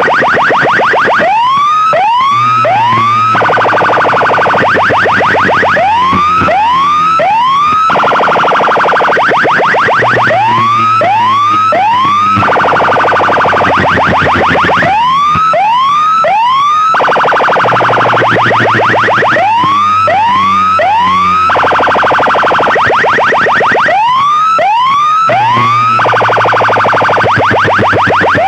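Very loud siren-style electronic effects blasted through a large DJ box speaker system: groups of three quick rising whoops repeat about every four and a half seconds, with dense rapid sweeps between them over a low steady bass tone.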